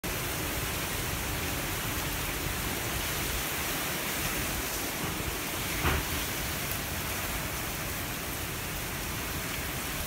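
Heavy typhoon rain pouring steadily, an even dense hiss, with one short louder sound about six seconds in.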